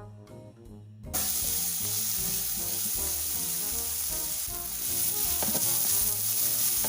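Onion, tomato and ground spices frying in ghee in a kadhai: a steady sizzle that starts suddenly about a second in. Before it, background brass music plays briefly.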